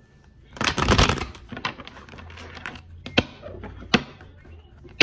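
A deck of reading cards being shuffled by hand: a dense flurry of card rattling starting about half a second in, then a few separate sharp clicks as the shuffle goes on.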